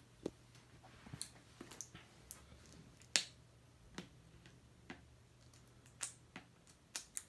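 Light, scattered clicks and taps from handling a Blu-ray box set's cardboard packaging, the sharpest about three seconds in.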